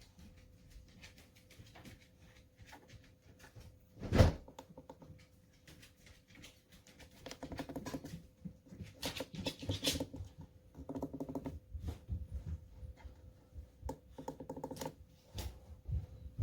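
Handling noises: scattered clicks, knocks and rattling, with one sharp knock about four seconds in and busier clattering in the second half, over a faint steady hum.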